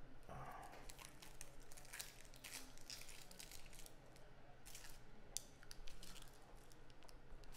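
Dry, papery onion skin being peeled off by hand, crinkling and tearing in many short, irregular faint crackles.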